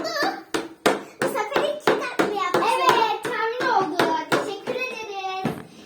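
A young child's voice, chattering in a sing-song way, over a run of sharp, irregular taps, about two to three a second.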